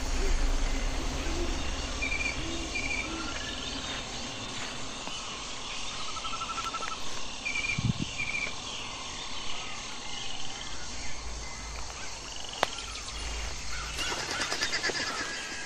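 Tropical forest ambience: a steady hiss of insects with short repeated bird chirps and small trills, and a low rumble on the microphone at times.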